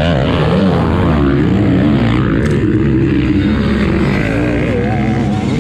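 Motocross dirt bike engines revving on the track, their pitch rising and falling as riders throttle and shift.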